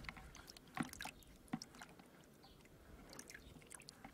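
Faint, scattered small splashes and drips of water as a paper photographic negative is rinsed by hand in a bucket of water.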